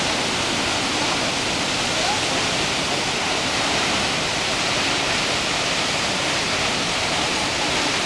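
Kegon Falls, a tall waterfall plunging down a cliff, giving a steady, unbroken rush of falling water.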